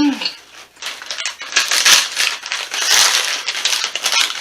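Loud crinkling and crushing of a foil snack-chip bag being handled and crumpled, a dense crackle that swells about two and three seconds in and stops at the end.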